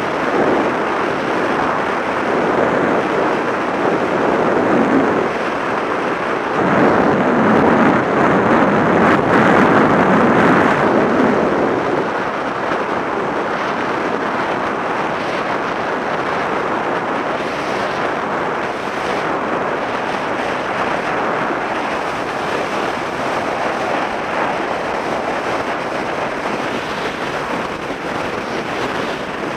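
Wind rushing over the microphone of a moving scooter, with the scooter's engine and tyre noise under it. It grows louder for a few seconds about a quarter of the way in, then settles to a steady rush.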